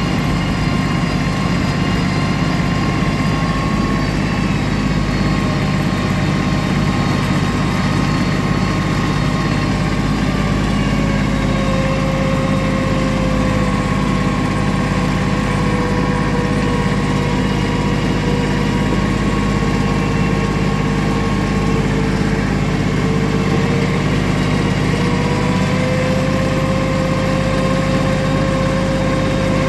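Vehicle engine running steadily at low speed, with a faint whine that slowly sags and rises in pitch.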